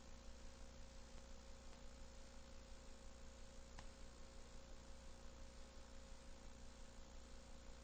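Near silence: a steady low electrical hum and faint hiss with a thin steady tone, and one faint tick a little under four seconds in.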